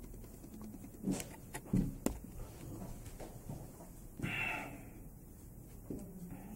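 A man's quiet breathing: a short, noisy breath out through the nose near the middle and a brief low hum near the end, after a few faint sharp clicks about a second in.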